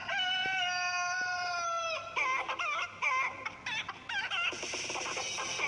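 A rooster crowing once, a long held call of about two seconds, followed by a run of short clucking calls.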